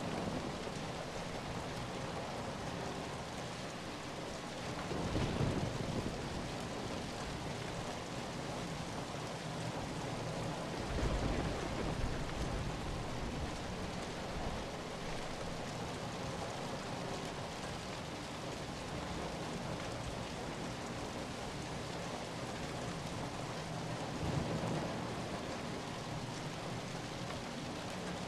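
Steady rain falling, with low rumbles of distant thunder swelling up three times: about five seconds in, around the middle, and near the end.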